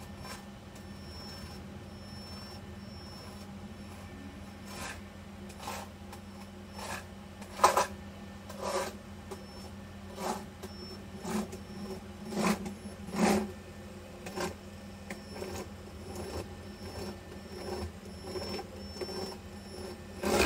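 Steady low hum with irregular short clicks and knocks over it, more frequent and louder in the second half, the sharpest about a third of the way in.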